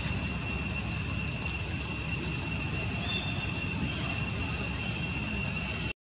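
Steady high-pitched insect drone over a low, even rumble of outdoor background noise; the sound cuts off abruptly near the end.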